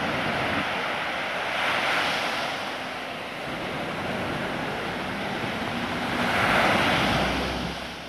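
Sea waves breaking on a sandy beach, a steady wash of surf that swells louder twice, about two seconds in and again, more strongly, near the end.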